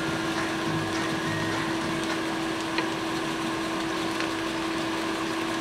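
Ground turkey and plant-based crumbles frying in two skillets on a portable electric double hot plate: a steady sizzle, with a steady low hum underneath.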